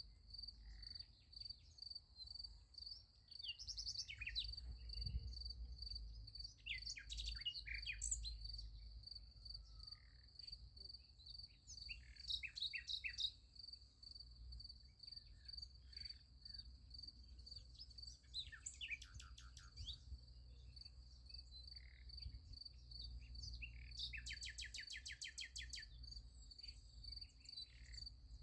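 Crickets chirping in a steady pulsing trill, with songbirds singing in short bursts several times over it, one a fast even trill near the end.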